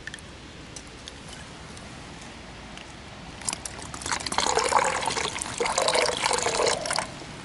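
Water poured from a small plastic cup into a Platypus soft plastic water bottle: a splashing pour of about three seconds that starts about halfway through and stops suddenly near the end. Before it, only a faint steady trickle of the shallow stream the cup is dipped in.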